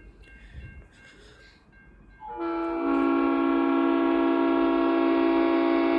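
Leslie RS5T five-chime air horn on a V/Line N-class diesel locomotive sounding one long, steady chord. It comes in about two seconds in, swells briefly, then holds.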